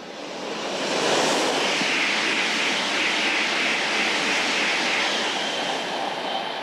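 Taiwan High Speed Rail 700T bullet train passing at speed: a steady rushing noise that builds over the first second and then holds.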